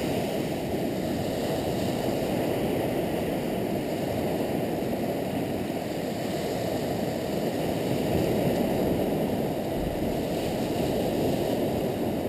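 Steady low roar of waves breaking on the shore, swelling and easing slightly.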